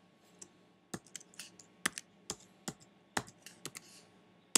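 Computer keyboard typing: a run of about a dozen uneven key clicks, starting about a second in, with a sharper click at the very end.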